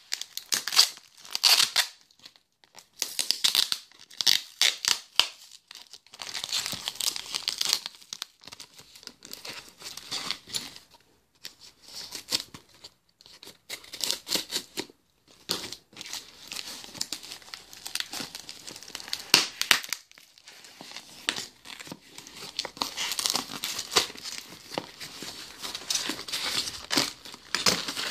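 Packaging being torn open and crinkled by hand: irregular bursts of ripping and crumpling, with short pauses between them, as a mailed package is unwrapped.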